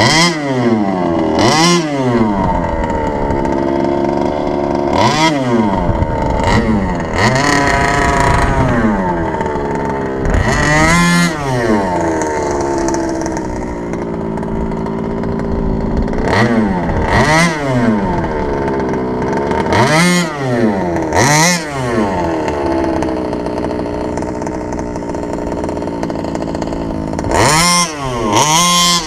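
29cc reed-valve two-stroke engine of a large-scale HPI Baja RC car, running and revving up and dropping back repeatedly between stretches of steadier running.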